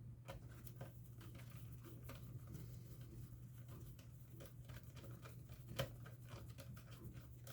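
Faint clicks and light scraping of a hand screwdriver turning small screws into a plastic laptop bottom shell, with one sharper click about six seconds in.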